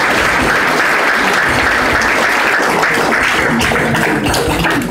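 Audience applauding steadily, beginning to thin out near the end.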